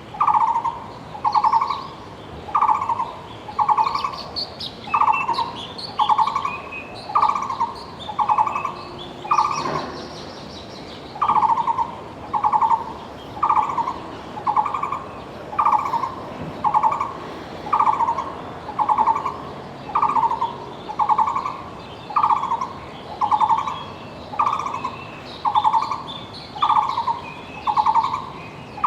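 Taiwan barbet singing its long, monotonous song: notes repeated steadily about one and a half times a second, with a short break about ten seconds in. Other small birds chirp faintly at a higher pitch.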